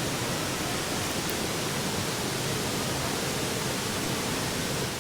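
Steady, even rush of a waterfall, a constant hiss without pauses or changes.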